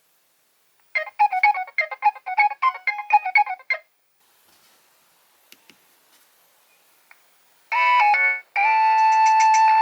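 Nokia 3100 mobile phone playing its ringtones through its small loudspeaker: a quick run of short melodic notes for about three seconds, then a pause with a few faint clicks. Another ringtone begins near the end with long held tones.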